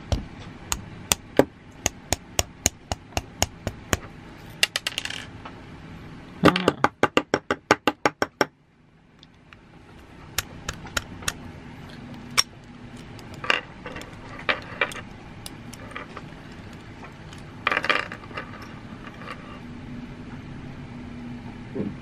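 Metal clicks and clinks from handling the metal housing of a Banshee alarm padlock as it is taken apart. A steady run of clicks, about three or four a second, comes at first; a faster run of about six a second follows some seven seconds in, then scattered clicks and short rattles.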